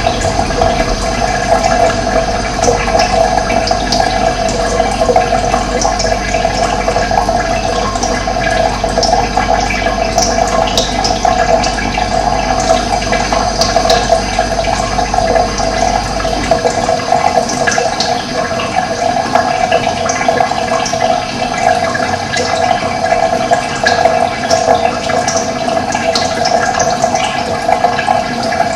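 Steady rush of running water, with short bird chirps scattered over it. A low rumble underneath stops about halfway through.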